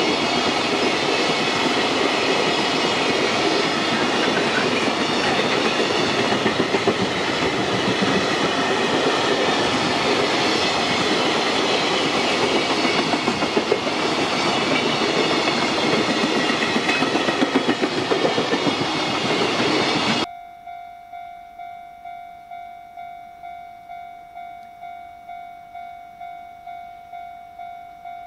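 A long JR Freight container train of Koki flatcars, many running empty, rolling past at speed, its wheels clattering over the rail joints with a few louder jolts. About twenty seconds in, the train noise cuts off abruptly and an electronic warning tone pulses steadily, a little under twice a second.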